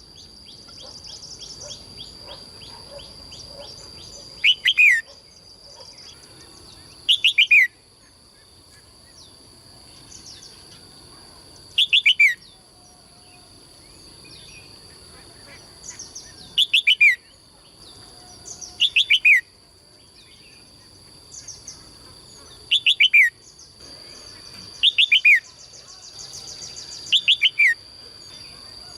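A caged songbird calling in short, loud bursts of three or four quick notes that each sweep downward, repeated every two to three seconds. A steady high-pitched tone runs underneath, and a faint rapid trill comes in near the start and again near the end.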